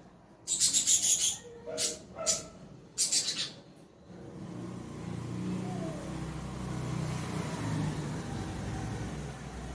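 A person sneezing: four short, sharp, breathy bursts in the first three and a half seconds, the first and last the longest. After that a low, steady rumble sets in and swells, then slowly eases.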